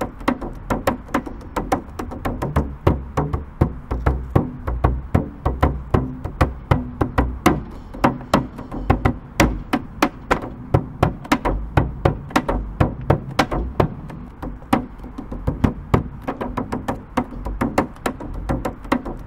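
Drums played in a fast, steady rhythm: sharp, crisp strokes over deep, booming low drum tones.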